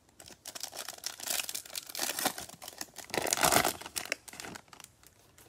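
Plastic wrapper of a Bowman Chrome baseball card pack crinkling and tearing as it is handled and ripped open by hand, loudest about three and a half seconds in.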